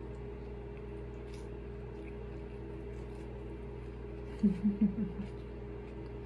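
A person chewing a mouthful of wrap, with faint wet mouth clicks over a steady low hum. About four and a half seconds in comes a quick run of four short closed-mouth hums, "mm-mm-mm-mm".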